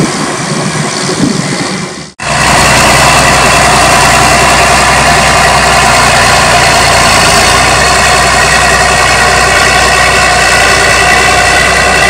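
A TerraGator slurry injector rumbling, cut off suddenly about two seconds in. Then a John Deere tractor's diesel engine runs loud and steady as the tractor drives up a grass silage clamp to compact it.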